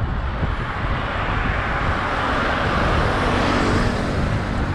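Highway road traffic: a passing vehicle's rush of tyre and engine noise swells to a peak a little past the middle and eases off toward the end, over a low rumble.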